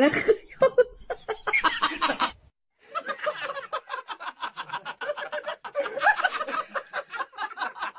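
A person laughing: after a short break about two and a half seconds in, a quick run of short, stifled laughs.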